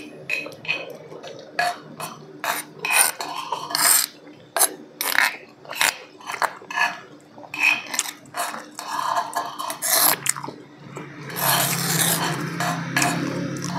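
Metal spoons scraping and tapping on plates as two people eat, a run of short separate scrapes. About eleven seconds in, a steadier noise with a low hum sets in and continues.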